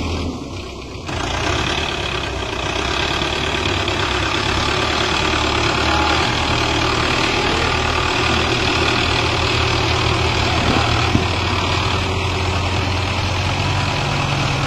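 Belarus tractor's diesel engine running while the tractor is stuck deep in mud, its speed stepping up and down a few times.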